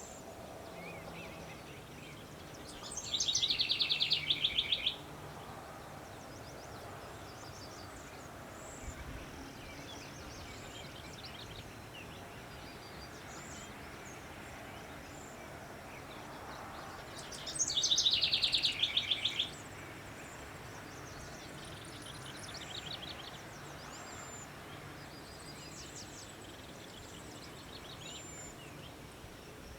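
Songbird singing in a field: a loud, fast trilled song about two seconds long, given twice about fourteen seconds apart, each opening with a short high slur. Faint short chirps from other birds come in between over a steady background hiss.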